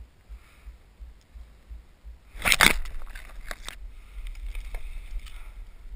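Leaves and brush rustling against the body-worn camera, with a loud crackling burst about halfway through as the wearer moves up through the undergrowth, then a few sharp snaps and a softer continued rustle. Soft regular low thumps come about three a second before the burst.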